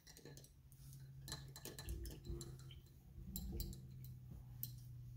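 Faint, irregularly spaced small clicks and taps over a low steady hum.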